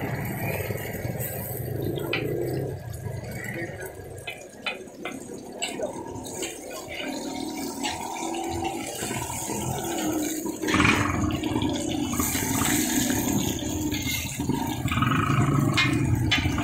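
Chapli kebabs sizzling in fat on a large flat griddle, with the short sharp clicks and scrapes of a metal spatula against the griddle as they are turned and pressed.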